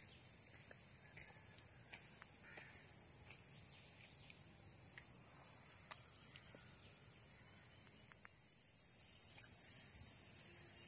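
Steady, high-pitched drone of insects chirring in the scrub, a little louder in the last couple of seconds, with a few faint ticks.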